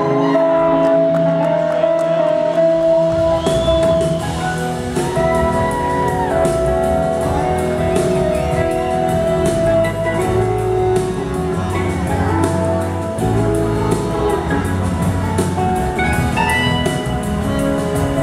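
Live rock band playing a slow song: an electric slide guitar lead on a Gibson SG with long gliding, bending notes over a second electric guitar. Bass and drums come in about three seconds in.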